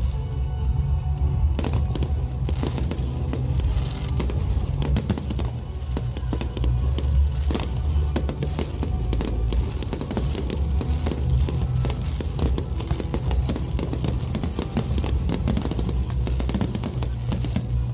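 Fireworks bursting and crackling in rapid, dense succession, starting about a second and a half in, over music with a strong low bass.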